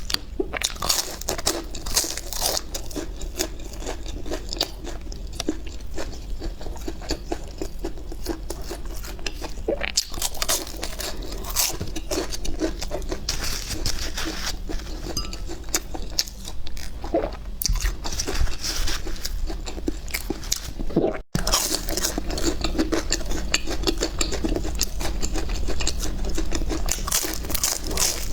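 Close-miked eating: a person biting and chewing crisp deep-fried food, with dense crunching and crackling throughout and a momentary break about two-thirds of the way through.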